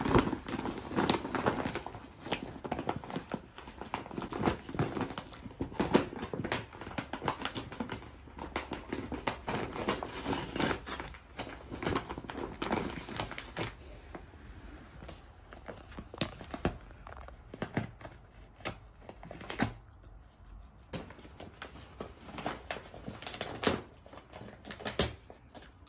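Paper gift bag and toy packaging crinkling and rustling in irregular crackles as a Labrador puppy rummages in the bag and tugs the toy out, busiest in the first half and sparser after about 14 seconds.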